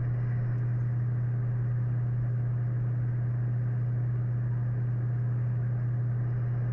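A steady low hum with no pauses or changes in level, which sits under the lecture audio.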